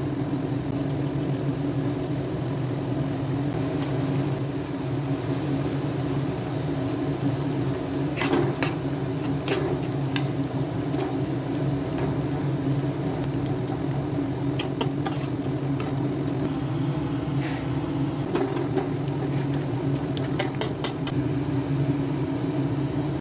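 A steady low mechanical hum, with a metal spoon now and then clinking and scraping against a steel pan as spinach and cooked dal are stirred together, in short clusters around the middle and near the end.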